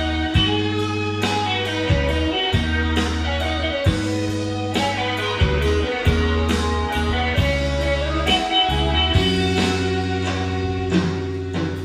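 Instrumental song intro, led by guitar over held bass notes and a steady beat of light percussion.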